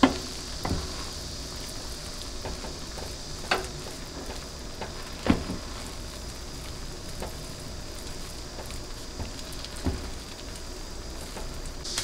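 Rice cooking in an enamelled cast-iron pot on a gas stove: a steady soft sizzling hiss, with about five light knocks of a wooden spatula against the pot as the bean-sprout rice is mixed before it rests.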